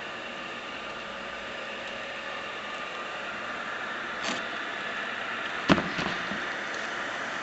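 Continuous band heat sealer running, its motor, belts and rollers giving a steady mechanical hum with faint steady tones. A short click comes about four seconds in, and a sharp knock, the loudest sound, comes near six seconds.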